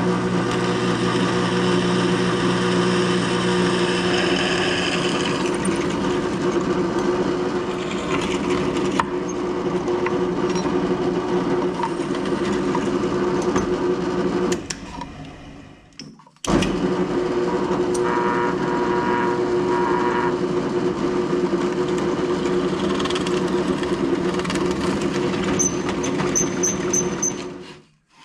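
A shop power tool's electric motor running steadily with a loud hum, stopping for about two seconds midway and then running again.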